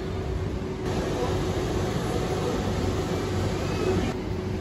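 Steady background noise of a large clothing store, with a faint constant hum. About a second in the noise turns brighter and slightly louder for about three seconds, then drops back.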